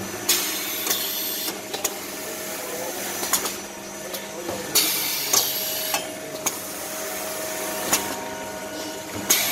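Automatic maxi-roll paper band-saw cutting machine running: a steady hum with scattered clicks and knocks. Bursts of hiss lasting about a second come at the start, about halfway and near the end.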